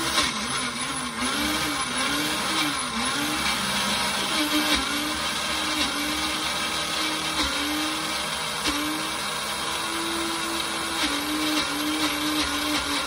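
A single-serve cup blender's motor runs, grinding chunks of órgano cactus with no water added. Its pitch rises and falls repeatedly for the first few seconds as the thick load catches, then holds steadier with brief dips.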